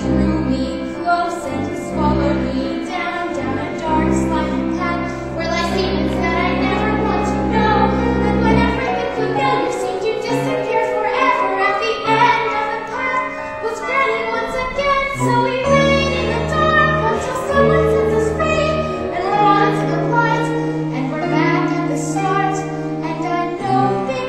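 A young female voice singing a solo song over instrumental accompaniment with sustained bass notes.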